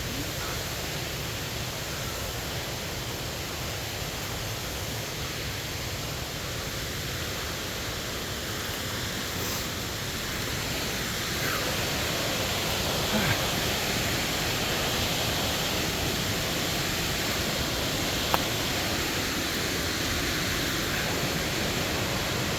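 Steady roar of a large waterfall, a continuous rushing hiss with no let-up, growing a little louder about halfway through, with a few faint clicks.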